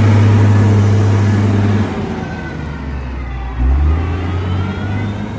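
Diesel engine of a GR180 motor grader running close by: a steady low drone that drops in pitch and level about two seconds in, with a brief deeper surge near four seconds.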